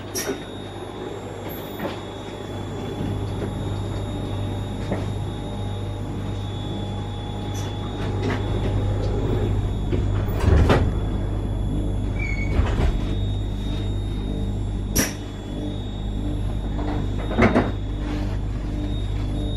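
Steady low hum of a Newag 19WE electric multiple unit standing at a platform, with a few sharp knocks and clunks of its sliding doors closing before departure.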